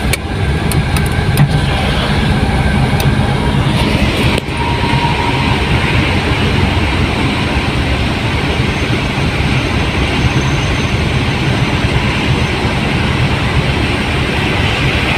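Sumitomo SH200 excavator's diesel engine running steadily at working speed, with a few sharp clicks or knocks in the first four seconds or so.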